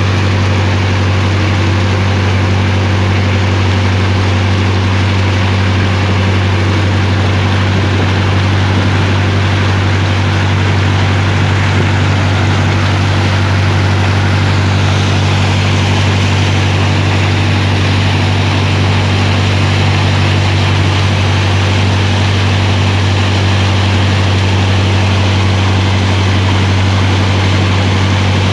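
Wooden river boat's engine running steadily at one unchanging pitch while under way, with a steady hiss over it.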